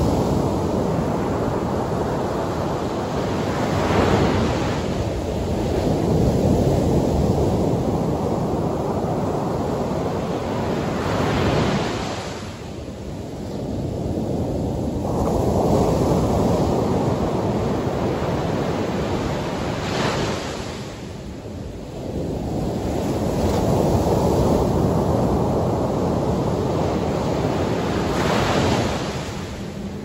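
Surf breaking on a sandy beach: four waves crash, roughly eight seconds apart. Each is followed by the rushing wash of foam up the sand, then a short lull before the next.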